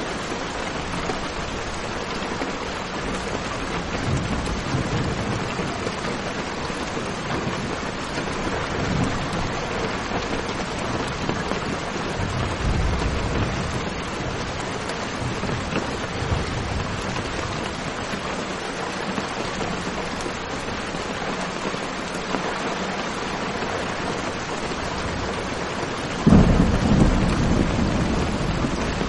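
Steady rain falling, with low rumbles of thunder rolling in now and then and a sudden louder thunderclap near the end that rumbles on for a few seconds.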